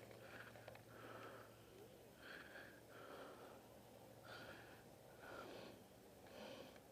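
Faint, rhythmic breathing close to the microphone: soft puffs of breath in and out about once a second, over a faint steady low hum.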